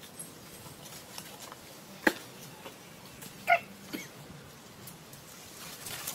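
Infant macaque giving one short, high squeak about three and a half seconds in. A sharp click comes a little before it.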